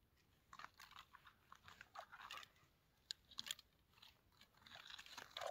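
Faint, irregular crunching and clicking of snow and ice at an ice-fishing hole, as gloved hands and a thin metal rod work in the snow-filled hole.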